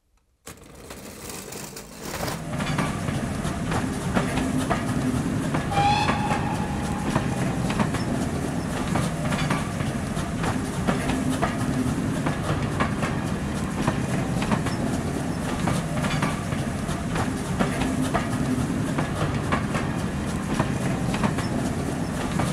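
Passenger train passing close by, its wheels clicking steadily over the rail joints, with a short high note about six seconds in.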